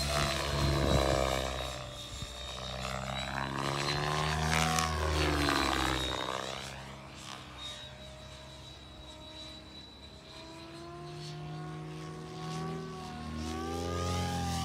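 Miniature Aircraft Whiplash 730e electric RC helicopter flying with Rapid 710 main rotor blades, its rotor buzz sweeping up and down in pitch as it makes passes. It is loudest in the first couple of seconds and again about five seconds in, fainter in the middle, and builds again near the end, with a steady high whine underneath.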